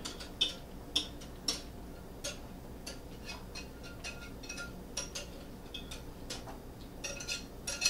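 A whisk clicking and scraping against a glass measuring pitcher as thick corn batter is scraped out of it, in irregular light taps.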